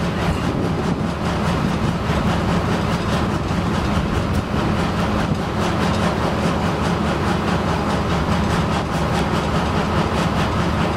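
Heavy diesel machinery running steadily: a constant low engine drone under a broad rumble, with no change in load or speed.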